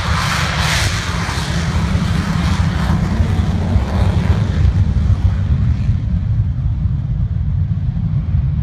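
Jet engine noise from a Blue Angels F/A-18 Hornet taking off and climbing away: a loud, steady rumble whose hissing top end fades about halfway through as the jet pulls away.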